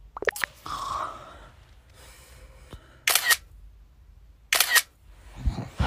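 Two camera shutter clicks, like a phone taking photos, about a second and a half apart.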